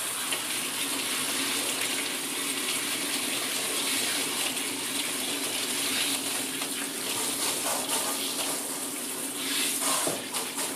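Water spraying steadily from a handheld shower head onto a dog's wet coat, rinsing it, with a few brief louder splashes near the end.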